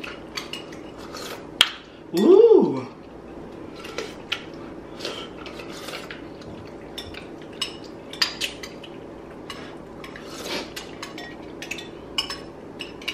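Metal spoons clinking and scraping against glass soup bowls, scattered light clicks as soup is spooned up and eaten. About two seconds in, a short voice hum rises and falls.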